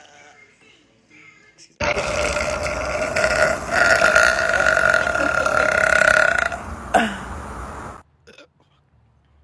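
A woman's long, loud burp that starts suddenly about two seconds in and holds a steady pitch for several seconds. It ends with a short falling drop near the end.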